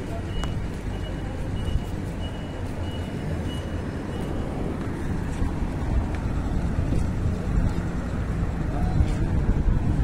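Street traffic: vehicle engines running close by with a low steady rumble. A high electronic beep repeats steadily for the first four or five seconds, then stops.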